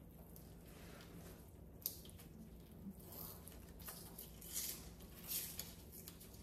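Quiet handling noises: a few small clicks and short soft rustles, as food is served onto plates.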